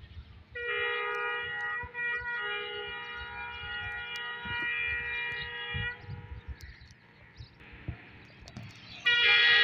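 Diesel locomotive horn of an approaching express train, sounding one long blast of several notes at once with a short dip about two seconds in. A second, louder blast follows near the end.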